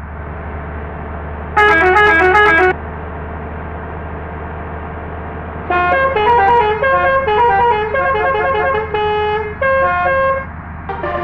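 Indonesian bus 'telolet' musical horn playing melodies over a steady low engine hum. A short, quick run of notes comes about one and a half seconds in, then a longer tune of stepping notes from about halfway through.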